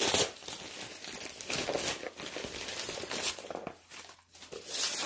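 Star-print gift wrapping paper being torn off a package and crumpled by hand: irregular crinkling and ripping, with a brief lull about four seconds in.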